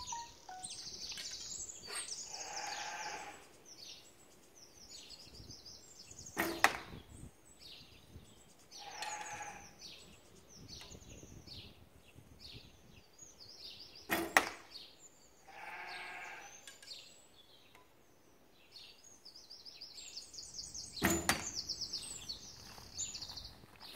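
Three recurve bow shots, about seven to eight seconds apart, each a sharp thwack as the arrow is loosed and strikes the straw-bale target. Between the shots a sheep bleats three times, with small birds chirping throughout.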